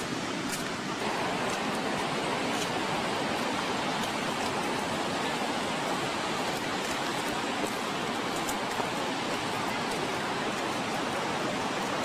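Steady rushing noise of surf breaking along the shore below the cliffs, a little louder from about a second in.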